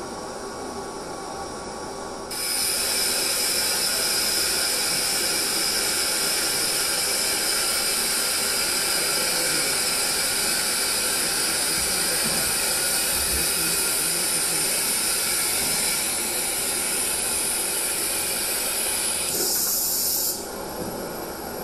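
Steady hiss from the soundtrack of a robot-arm demonstration video being played back, starting abruptly about two seconds in and cutting off shortly before the end.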